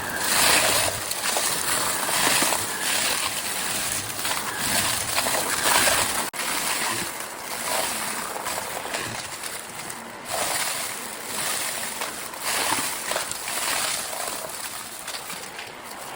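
Vacuum cleaner running fast over crunchy debris, a dense crackle of bits being sucked up through the nozzle, with the loudness swelling and easing. The sound drops out for an instant about six seconds in.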